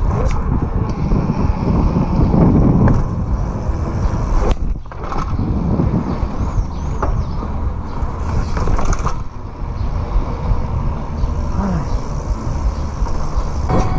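Downhill mountain bike being ridden over street and paving: a steady rumble of tyres and rushing wind on the camera's microphone, with a brief drop about four and a half seconds in.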